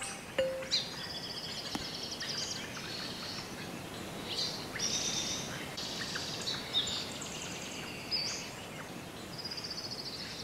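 Several birds singing, with repeated quick trills and chirps over a soft steady hiss of outdoor ambience. A single soft chime note rings briefly just after the start.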